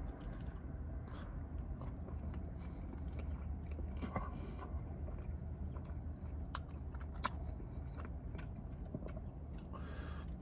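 A person chewing food close to the microphone, with scattered crunchy bites and sharp mouth clicks, over a steady low hum.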